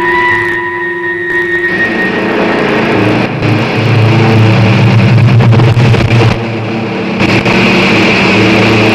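Steady electronic music tones give way, about two seconds in, to a film sound effect of a rocket engine: a loud, dense rushing noise over a low hum that carries on, briefly dipping twice.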